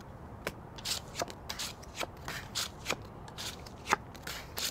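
Playing cards dealt by hand onto a wooden tabletop: irregular sharp snaps and short brushing slides as the cards are drawn, flipped and laid down, the loudest snap about four seconds in.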